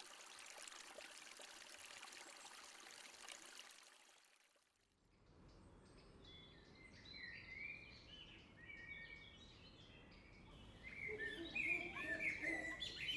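A steady rushing hiss that cuts off after about four seconds, then songbirds singing, with many short chirping calls that grow louder near the end.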